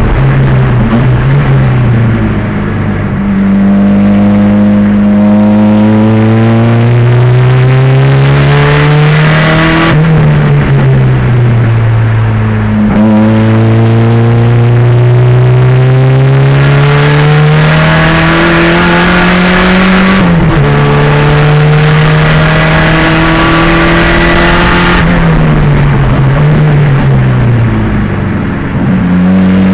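A 1987 Pontiac Fiero's turbocharged 2.0-litre engine running at racing speed. The revs climb and fall repeatedly, with sudden pitch jumps at gear changes about ten and twenty seconds in, and stretches where the engine winds down, as when lifting off for corners.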